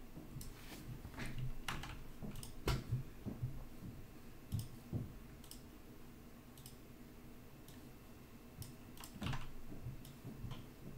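Faint, irregular clicks of a computer mouse and keyboard, thicker at the start and again near the end, with a quiet stretch in the middle.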